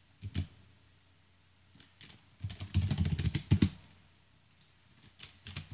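Computer keyboard being typed on: a couple of keystrokes about a third of a second in, a quick run of keys around the middle, then a few scattered taps near the end.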